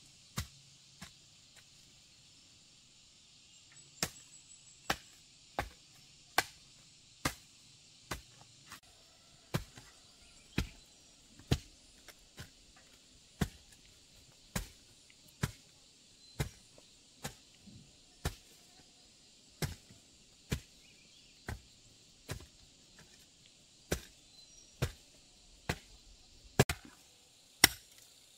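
Series of sharp chopping strikes from a hand tool, about one a second, the loudest near the end, over a steady high hiss.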